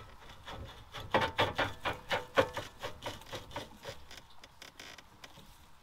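Long-tail mud motor's drive-shaft tube being slid onto the engine's spline shaft: a quick run of metal scraping and clicking, densest in the first half and thinning out near the end.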